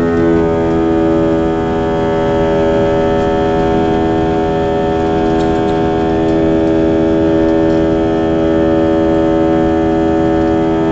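Airbus A321 turbofan engines at high thrust in the climb after take-off, heard from inside the cabin: a loud, steady buzz-saw drone of many stacked tones over a rushing noise. The tones shift slightly right at the start and then hold steady.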